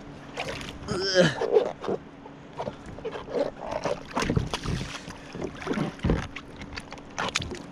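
Sea water splashing and sloshing as a swimmer's fins kick at the surface beside a small boat: irregular splashes over a faint steady hum.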